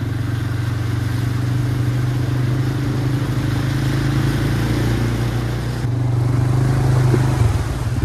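Quad bike (ATV) engine running steadily as it drives through shallow muddy water, with water splashing from the wheels. The engine note drops and turns rougher near the end.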